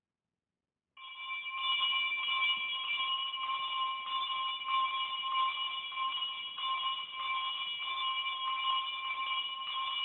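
An electric bell ringing continuously, with a steady metallic ring and a rattling buzz, starting about a second in after a moment of silence.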